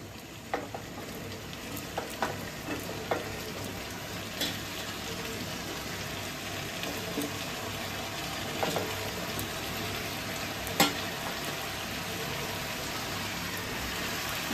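Cut vegetables frying in hot oil and spice paste in a wok: a steady sizzling hiss, with a few short knocks as more pieces are dropped in by hand.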